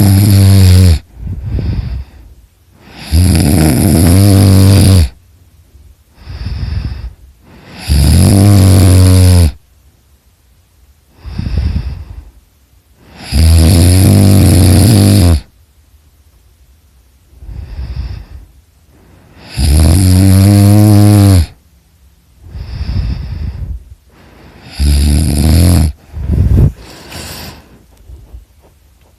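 A person snoring: a loud, low buzzing snore about every five to six seconds, each lasting about two seconds, with a softer, shorter breath sound between them. Near the end come two short snorts, and then the breathing goes quiet.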